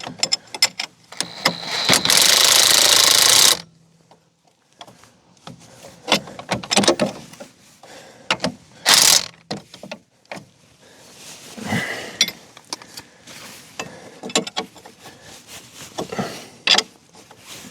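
Impact wrench run in bursts on the strut's suspension bolts: one long burst of about two seconds a second or so in and a short one near the middle, with clinks and clicks of hand tools in between.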